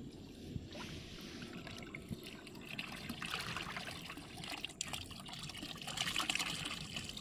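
Water pouring and trickling from the open end of a PVC-pipe fish trap into a plastic basket, with eels sliding out along with it. The flow grows heavier and louder from about halfway through.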